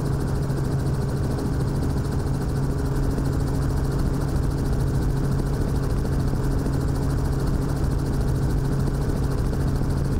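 Helicopter in level flight, heard from inside the cabin: a steady engine and rotor drone with a fast, even beat.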